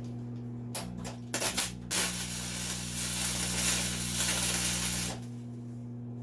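Wire-feed (MIG) welder arc on heavy steel plate: a few short sputtering strikes about a second in, then about three seconds of steady crackling arc hiss that cuts off suddenly, over the machine's steady hum. The welder is still short of heat: its settings are being turned up between runs.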